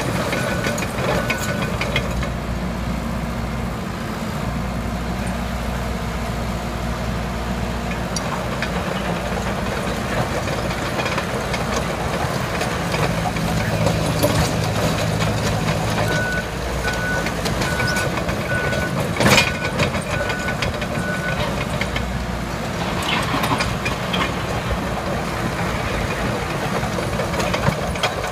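Komatsu D37EX crawler dozer's diesel engine running steadily as the machine pushes dirt and rock with its blade. A beeping alarm, about two beeps a second, sounds briefly at the start and again for about five seconds past the middle, and a single sharp knock comes about two-thirds of the way through.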